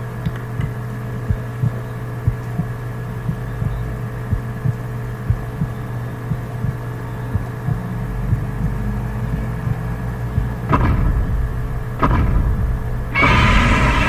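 Film soundtrack: a steady low rumbling drone with scattered deep, irregular thumps, two heavier hits a little before the end, then a sudden loud swell of dramatic music just before the end.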